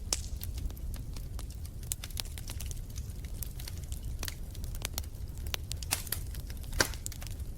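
Wood fire in a fireplace crackling: irregular sharp pops and snaps over a steady low rumble, with one louder pop near the end.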